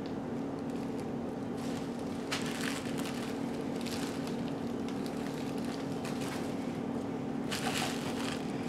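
Bubble wrap and plastic packaging rustling and crinkling as it is pulled off parts in a cardboard box, in a few short bursts, over a steady low hum.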